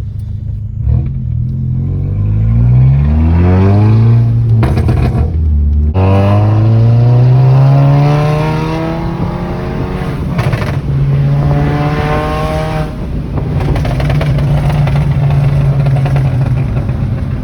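Volkswagen GTI engine under hard acceleration. Its pitch climbs steeply, breaks for a gear change, and climbs again, then settles into a steadier drone after a further shift, heard from inside the car.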